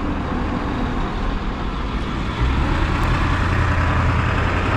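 Steady rush of wind and road noise while riding a fat-tire e-bike, with a deeper low rumble coming in about halfway through.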